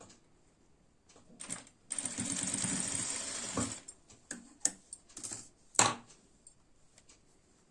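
Sewing machine stitching in one steady run of about two seconds, followed by a few sharp clicks and knocks as the work is handled.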